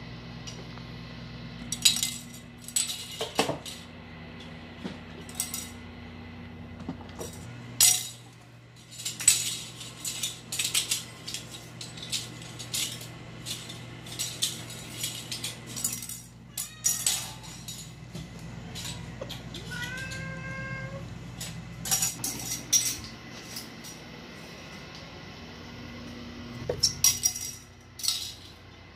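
A plastic spoon clattering and skittering across a tiled floor in irregular bursts of sharp clicks as kittens bat and pounce on it. About two-thirds of the way through, a kitten gives one short mew.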